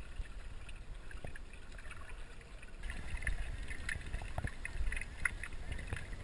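Water sloshing and lapping over a low rumble, with scattered small clicks and splashes that become more frequent about three seconds in.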